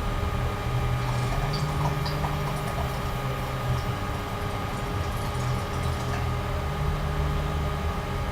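Water pipe bubbling in low stretches as it is smoked, with a steady electrical hum underneath.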